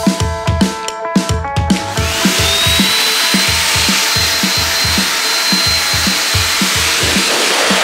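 High-velocity pet grooming dryer switched on about two seconds in: its motor spins up with a rising whine that settles into a steady high whine over a loud rush of air. Background music with a steady beat plays throughout.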